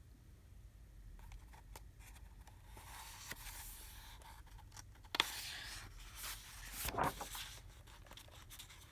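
Paper rustling and sliding as a picture book's page is turned, with a few small clicks and a sharper tap about five seconds in; faint.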